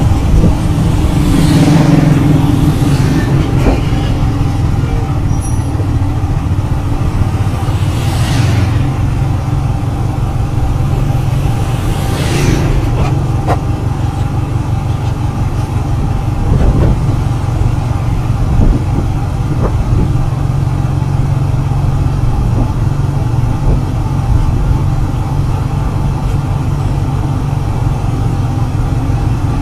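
Steady engine and road noise of a vehicle driving along, heard from on board, with three short whooshes of other vehicles going by in the first half.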